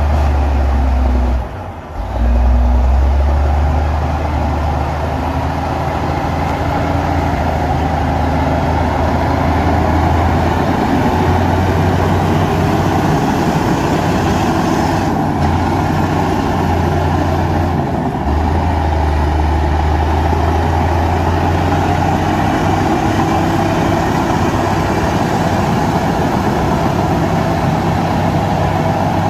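Heavy diesel earthmoving machinery running steadily with a deep engine drone, dipping briefly about two seconds in.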